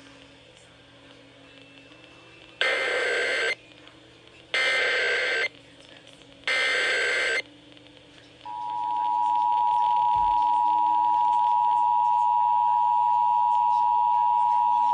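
Emergency Alert System SAME header data: three separate electronic bursts of about a second each. About 8.5 seconds in, the steady EAS two-tone attention signal starts and holds, announcing the start of an alert broadcast.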